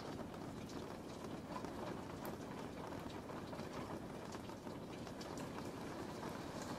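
Steady heavy rain: an even, low rushing hiss with many small drop ticks scattered through it.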